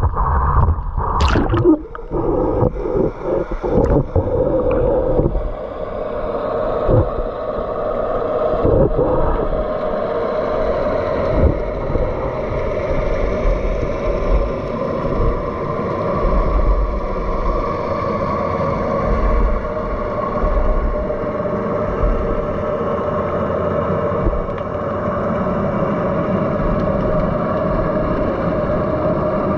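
Water splashing and sloshing around the camera at the surface for the first few seconds as it goes under. Then a steady, muffled underwater rumble with a faint even hum.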